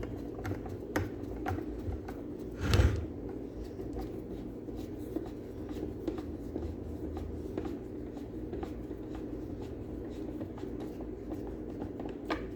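Small clicks and taps of nuts, a tool and metal parts being handled as the nuts are fitted and tightened on a Hoover carpet machine, with one louder clatter about three seconds in.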